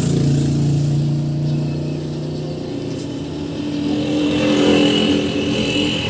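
Honda Click 150 scooter's single-cylinder engine running through an Exos X-6 aftermarket exhaust. It runs steadily at first, revs up to a louder, higher pitch about four seconds in, then eases off near the end.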